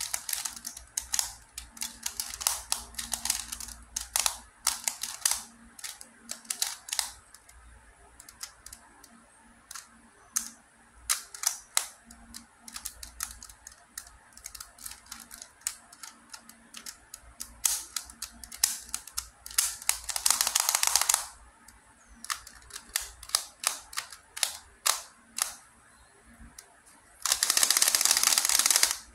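QiYi MoFangGe Master Pyraminx, a plastic pyramid twisty puzzle, clicking and clacking as its layers are turned by hand: scattered single turns, with two runs of rapid turning, a short one about two-thirds in and a longer, louder one near the end.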